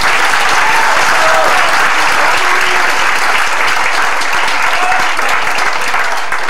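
Theatre audience applauding steadily at the end of a sung number.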